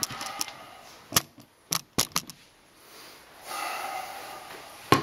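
Handling noise as a camera is moved and set down: four sharp clicks and knocks in about a second, a rustling stretch, then one more loud knock near the end.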